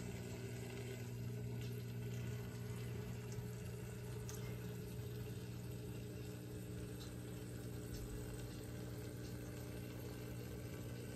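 Small submersible pump of a tiered tabletop water fountain running with a soft, steady hum, and water trickling lightly down the tiers.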